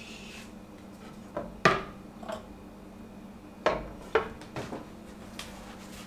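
Metal cookware clanking: a series of about seven sharp knocks and clatters, the loudest about two seconds in, as a freshly baked loaf's pan and lid are handled.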